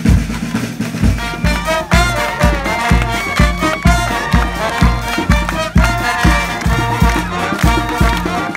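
Upbeat band music, with a melody that sounds like horns over a steady bass beat about twice a second.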